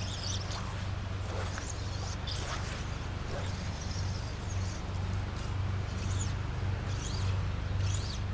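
Faint swishes of fly line being cast and stripped through the rod guides, several times, over a steady low hum.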